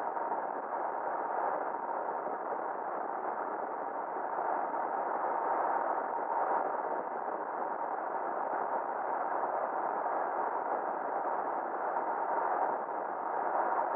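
Steady, muffled rushing noise of a pickup truck driving at road speed, heard through an onboard camera, with a faint steady tone running through it.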